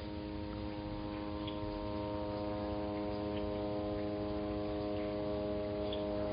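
A steady hum made of several fixed tones, slowly getting louder, with a few faint ticks over it.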